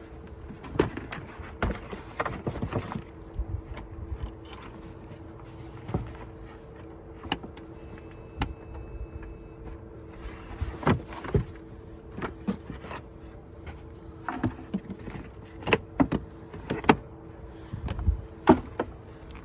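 Plastic cargo-floor covers in an SUV's trunk being lifted out and handled: scattered knocks, clacks and rattles, with a steady two-tone hum underneath.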